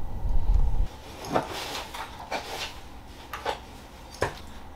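A heavy low thump, then a string of sharp, irregular knocks and clacks from hard-soled leather derby shoes being handled and put on over a wooden floor.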